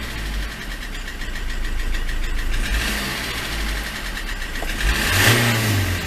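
Ford Transit Mk7 2.4 diesel engine idling and then revved up about five seconds in, with a knock that the owner suspects comes from the dual-mass flywheel.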